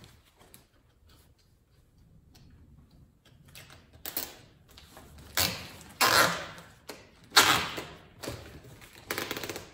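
Heavy-duty plastic garbage bag crinkling and rustling in several short bursts, starting a few seconds in, as a zip tie is threaded through the plastic and pulled tight.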